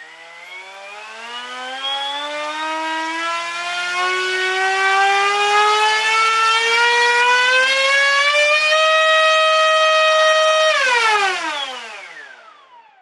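Turnigy H3126 1300kV brushless motor spinning an 8x4 propeller on a 4-cell pack, its whine rising steadily as the throttle is opened over about nine seconds. It holds at full throttle for about two seconds, then spools down near the end as the throttle is cut.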